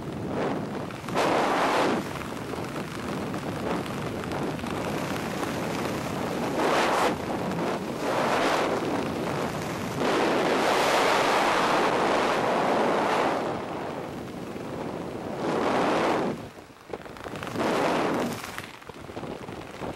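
Wind rushing over a helmet camera's microphone under an open parachute canopy, surging and easing in gusts, loudest for a few seconds in the middle and dropping away briefly near the end.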